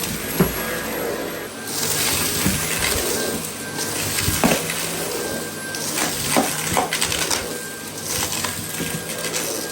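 Dyson V8 cordless stick vacuum running steadily while sucking up hard debris, which rattles and clicks through it in several sharp ticks.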